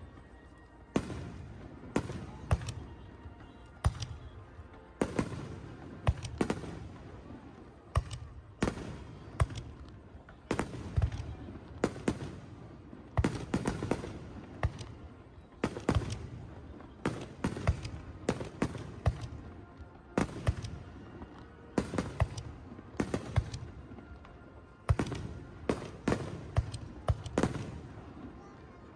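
Aerial fireworks shells bursting in a dense, irregular series of booms, about one or two a second, each dying away in a low rumble.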